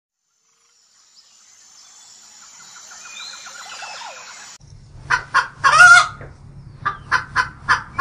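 Faint bird chirps and whistles fade in, then about five seconds in helmeted guinea fowl start calling loudly over a low hum. They give harsh, rasping cries: a couple of single calls, one longer call, then a run of short calls about three a second.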